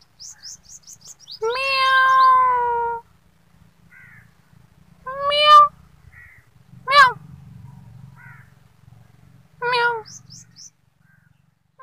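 A black-and-white domestic cat meowing four times: one long, drawn-out meow about a second and a half in, then three shorter meows spaced a few seconds apart.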